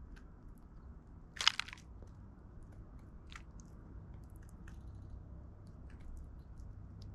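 Eurasian tree sparrows pecking and cracking seeds in a wooden feeder tray: scattered sharp clicks and crunches, the loudest a short cluster of crunches about a second and a half in, over a low steady background rumble.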